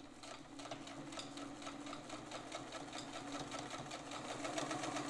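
Freshly overhauled Pfaff 1196 sewing machine running slowly through a straight-stitch seam: an even motor hum with the needle mechanism ticking about five or six times a second, gradually getting louder.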